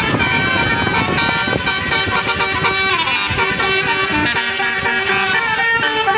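Bus basuri telolet horn playing a melody: loud, sustained multi-tone horn notes that hold and step from pitch to pitch, with a low rumble beneath for the first half.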